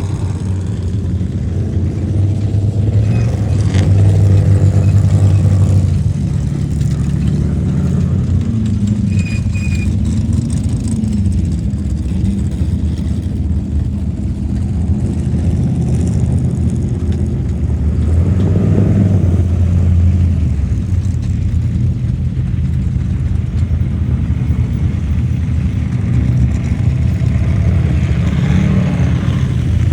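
Off-road race vehicle engines running hard, revving with rises and falls in pitch, swelling louder about four seconds in and again a little past the middle.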